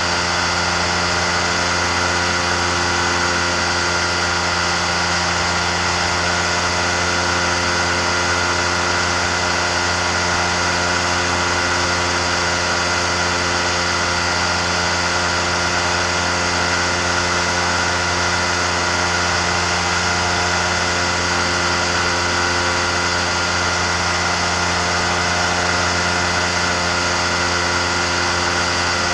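Amphibious microlight trike's engine and pusher propeller running at a steady cruise in flight, a constant drone with no change in pitch, over a rush of air.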